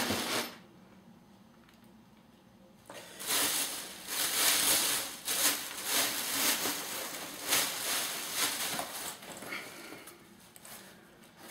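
Clear plastic wrapping crinkling and rustling as a padded gig bag is pulled out of it and handled. It starts about three seconds in after a short quiet spell, comes in uneven swells, and eases off near the end.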